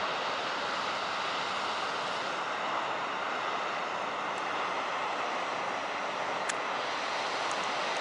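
Heavy big-wave surf breaking and whitewater rushing: a steady, even rush of noise with no distinct strokes.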